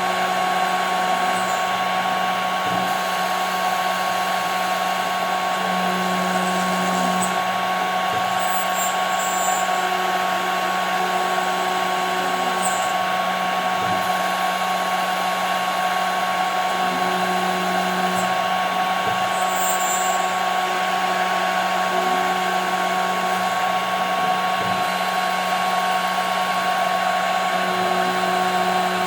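CNC router spindle running steadily and cutting 5 mm plexiglass: a continuous motor whine over cutting noise, with a lower hum that swells briefly a few times.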